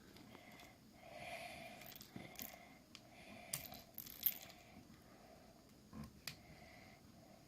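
Faint light clicks and taps of small plastic toys being handled and set down on a table, a handful of separate ticks.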